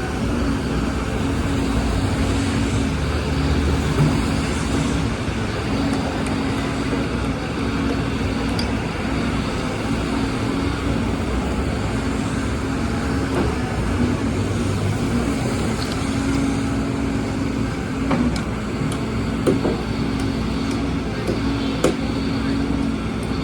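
A heavy engine running steadily with a constant hum over a general urban rumble. A few sharp knocks come in the last third.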